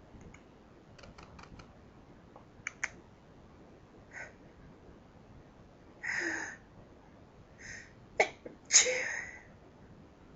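Sneezing fit: a few short, sharp breaths catching in, then a sneeze just after eight seconds in.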